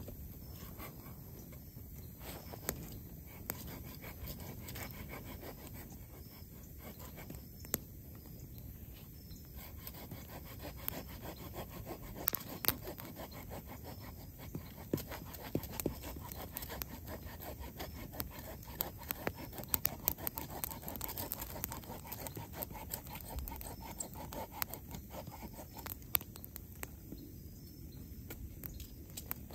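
A blade scraping and cutting into a dry wooden branch, in irregular strokes, with many scattered sharp clicks from a small campfire crackling beside it.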